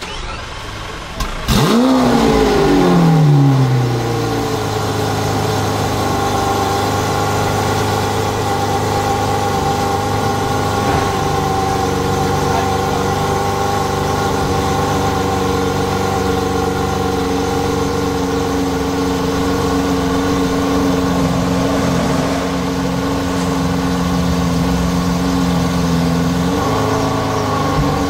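Hamann-tuned Lamborghini Aventador's 6.5-litre V12 firing up about a second and a half in: a loud flare of revs that falls away over a couple of seconds, then a steady idle.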